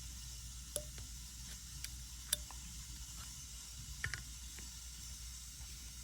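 A handful of short, sharp clicks and taps from small hand tools and electronic parts being handled on a workbench, the loudest a little over two seconds in and a quick double click about four seconds in, over a steady background hiss and hum.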